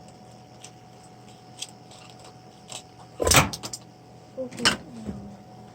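Plastic housing of a baby monitor camera being cut and forced open by hand: a few light clicks, then a loud crack about three seconds in with small clicks after it, and a second, shorter crack about a second later.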